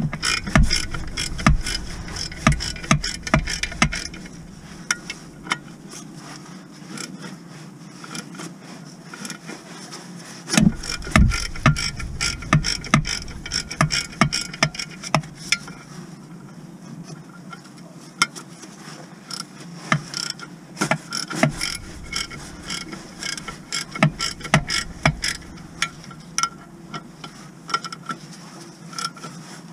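Ratchet wrench with a socket on the clutch pressure plate bolts, clicking in short irregular runs with pauses between, with the odd sharper metal clink.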